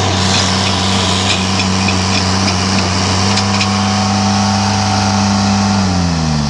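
Tractor engine running at a steady speed, then its revs falling away near the end.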